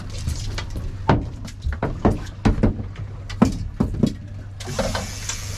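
A netted fish flopping in the landing net on a boat's deck, giving about eight irregular knocks and thumps as it and the net frame strike the deck, over the steady low rumble of the boat's engine.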